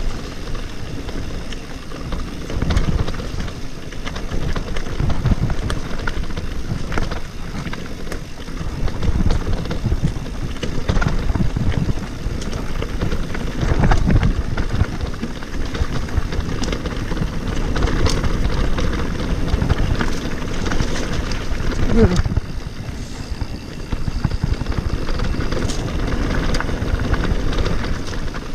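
Mountain bike riding fast down a dirt forest trail: a steady rumble of tyres and wind on the bike-mounted microphone that swells and fades with speed, broken by short knocks and rattles as the bike goes over bumps and roots.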